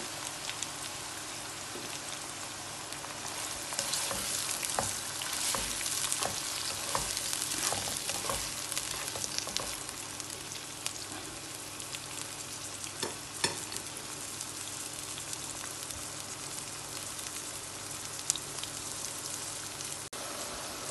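Sliced onions sizzling in hot oil in a non-stick pan. A slotted spatula stirs them, its scrapes and taps coming thickest between about four and ten seconds in, with one sharper knock against the pan about halfway through.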